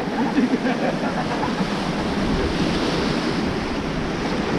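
Rushing river water around a raft, a steady wash of noise, with wind buffeting the microphone.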